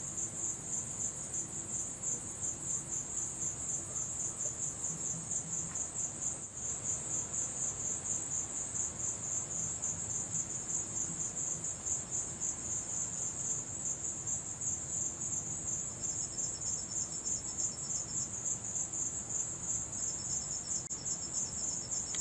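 Crickets chirping in a steady, fast-pulsing high trill. A second, slightly lower and fainter trill joins twice in the later part.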